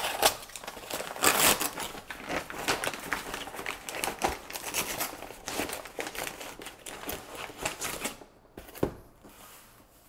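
Brown paper mailer bag crinkling, rustling and tearing as it is handled and opened, with a box cutter in hand. Near the end it goes much quieter, with a single sharp knock.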